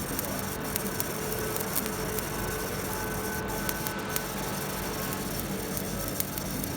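Excetek HD30Z EDM hole drill at work: a steady machine hum with a fine, irregular crackle of electrical sparking as the electrode burns a small hole through conductive metal.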